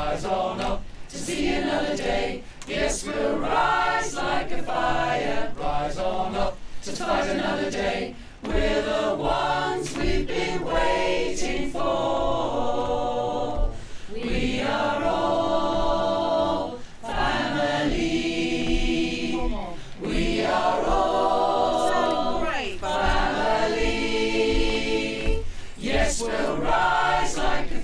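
Choir singing together, a chant-style song sung over and over with short breaths between phrases.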